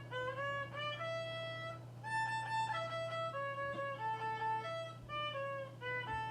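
Violin playing a melody of separate notes about half a second each, several of them sliding up into pitch, over a steady low hum.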